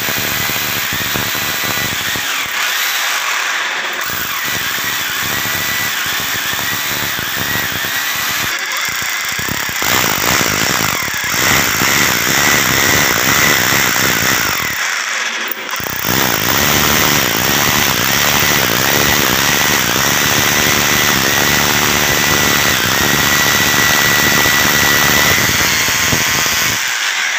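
Red corded electric drill boring into the ceramic tile and concrete of a stair step, a steady grinding with a high squealing whine from the bit. It stops briefly twice, about nine and fifteen seconds in, and starts again.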